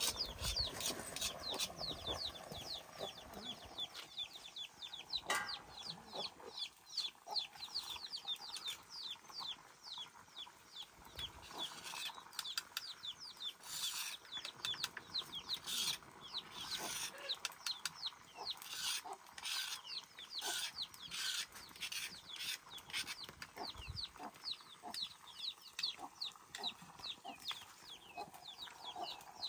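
Chickens calling: a steady run of high, quick down-sliding peeps, several a second, with a few brief louder noises around the middle.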